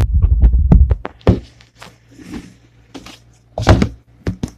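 Handling sounds of a plastic roll-on deodorant bottle: rumbling handling noise with clicks for about the first second, then a series of knocks and taps as the bottle is moved and set down on a wooden table. The loudest knock comes a little after three and a half seconds.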